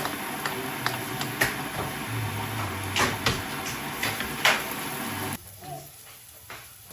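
Steady room noise with a few sharp knocks and clicks, like things being set down, which drops away abruptly a little over five seconds in.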